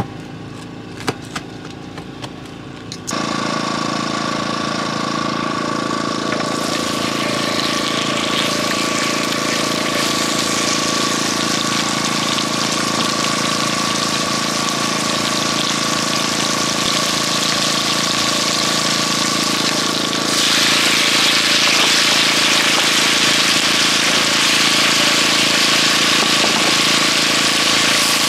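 A few clicks, then a motor starts abruptly about three seconds in and runs steadily with a thin whine. Its hiss grows stronger about twenty seconds in.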